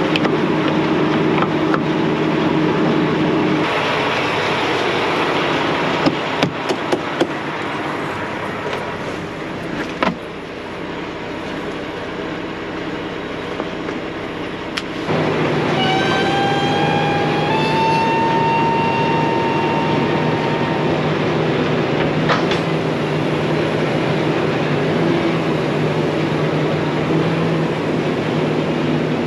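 Semi-truck diesel engine idling steadily, with a few sharp clicks and a knock partway through as the driver unhooks the trailer's air lines and works the cab's air valves. The engine sound comes back stronger about halfway through, and a rising whistle runs for a few seconds soon after.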